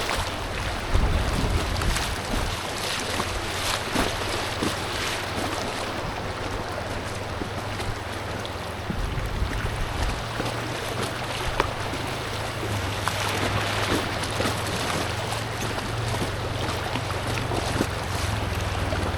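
Steady rush of creek water around an inflatable kayak, with occasional short splashes, and wind buffeting the microphone with a low rumble.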